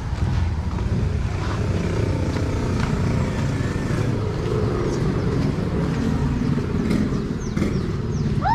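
A motor engine running steadily, with a short rising-and-falling bird call right at the end.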